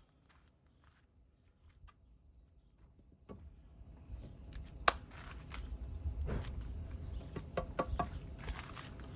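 A steady high-pitched insect chorus of crickets, setting in a few seconds in, with scattered light knocks and clicks; one sharp click about halfway through is the loudest sound.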